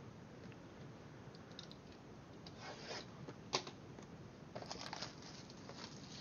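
Faint rustling, crinkling and tearing of packaging as a box of trading cards is opened by hand, with a sharper click a little past halfway.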